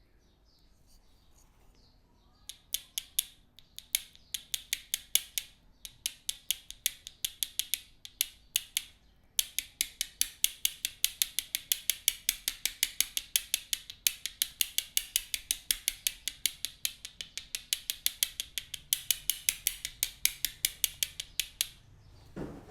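Fast, even run of sharp clicking taps, about six a second, from hands working rapidly on the head in an Indian head massage (champi). The taps come in stretches with a few short breaks, and a brief lower sound comes near the end.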